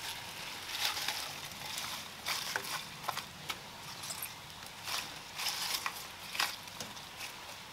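Cut leek and celery stalks with their leaves being put into a stainless steel pot of water and pressed down by hand: a series of short, scattered rustles of the leafy greens.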